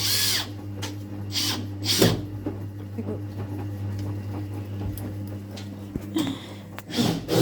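A few light clicks and knocks of screws and small hardware being handled, over a steady low hum. A high whirring carried over from before cuts off just after the start.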